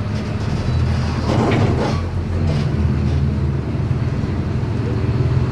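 Volkswagen 17.230 EOD bus engine running steadily under way, a deep drone whose pitch shifts a little about halfway through. A brief rushing noise rises over it about a second and a half in.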